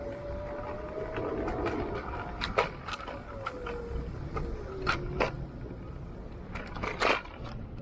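A riding scooter's motor whine rises, then falls and fades out about five seconds in, over low road rumble. Sharp rattles and knocks are scattered through it, the loudest twice: once in the middle and once near the end.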